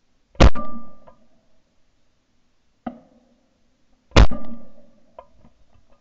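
Two close, loud shotgun shots about four seconds apart at springing teal clay targets, each with a short ringing tail, and a fainter bang between them.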